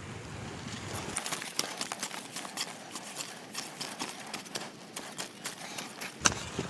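Long-handled narrow-bladed digging spade striking and cutting into hard, dry soil around the base of a tall grafted mango sapling: irregular sharp knocks and scrapes, a few each second, as the root ball is cut free to lift the tree.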